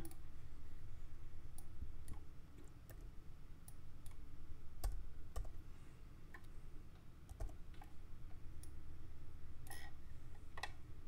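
Sporadic clicks from a computer mouse and keyboard being worked, over a steady low hum.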